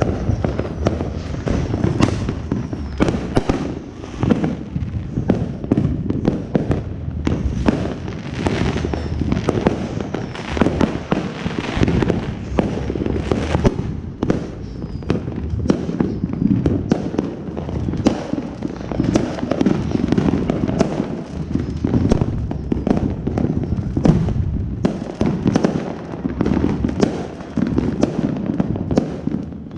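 Fireworks going off all around: a constant mix of pops, crackles and bangs, many overlapping. A ground firework sprays sparks close by at the start, and aerial shells burst overhead.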